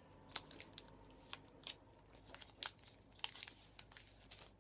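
Plastic candy-bar wrapper crinkling and crackling as it is handled, in a string of sharp, irregular crackles.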